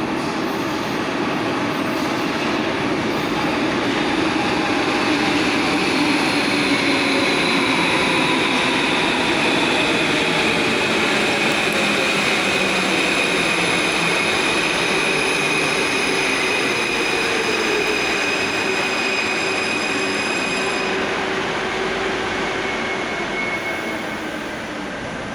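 Alstom AS-02 metro train running into the station and braking to a stop. A steady rumble carries several electric whining tones that slide down in pitch as it slows, and these cut off about 21 seconds in as it halts.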